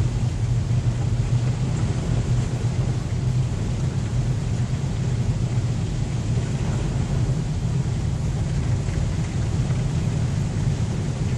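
Steady low rumble and hiss of a car driving, heard from inside the cabin.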